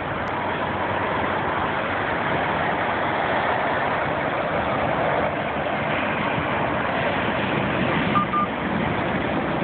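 Steady rush of highway traffic, with two short high beeps near the end.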